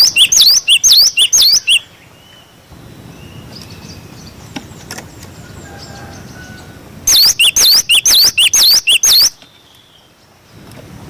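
Cinereous tit (glatik batu) singing its 'wucit wucit' song: two loud bursts of quickly repeated high, hooked whistled notes, the first lasting under two seconds and the second starting about seven seconds in and lasting about two seconds, with only faint background noise between.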